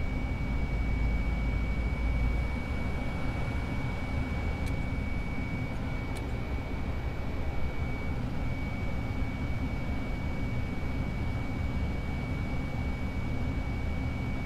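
Steady cockpit noise of an airliner on final approach with gear and flaps down: a low rumble of airflow and engines, with a thin steady high-pitched whine over it. Two faint ticks a second and a half apart near the middle.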